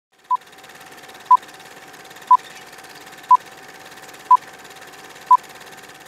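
Old film-leader countdown sound effect: a short beep once a second, six times, over a steady hiss and a faint steady tone.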